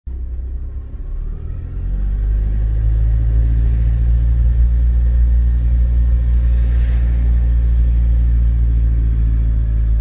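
A motor vehicle's engine runs steadily, a low drone that grows louder about two seconds in and then holds level.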